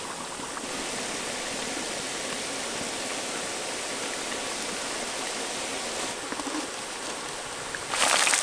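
Jackfruit strips deep-frying in hot oil with curry leaves in a large wok: a steady bubbling sizzle that turns suddenly louder, with sharp crackling, about eight seconds in.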